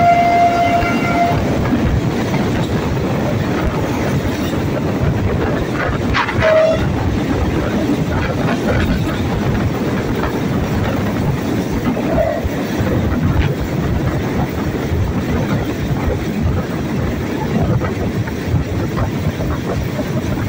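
Alsthom diesel-electric locomotive's horn sounding and cutting off about a second in, then the locomotive and train running steadily along the track, heard from the carriage right behind it.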